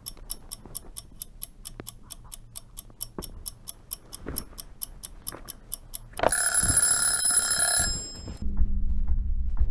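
A clock ticking fast and evenly, about six ticks a second. About six seconds in, an alarm clock bell rings loudly for about a second and a half and cuts off. Near the end a loud, low steady drone sets in.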